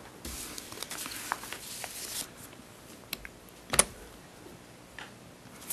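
Soft rustling for about two seconds, then a few scattered sharp clicks, the loudest about four seconds in: small handling noises.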